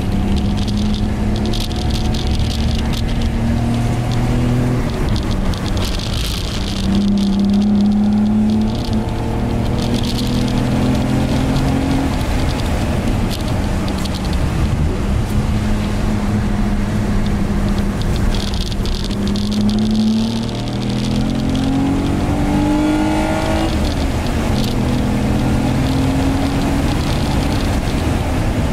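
Infiniti I30's 3.0-litre V6 heard from inside the cabin on a wet track, climbing in pitch under throttle and dropping back several times, over a steady hiss of tyres and spray on wet tarmac.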